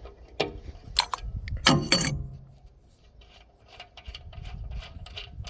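Metal-on-metal clinks and knocks as steel cover bolts and a wrench are handled, loudest about two seconds in. Near the end comes a run of light, rapid ratchet-wrench clicks, about three or four a second, as the next 19 mm bolt on the hydraulic tank cover is turned.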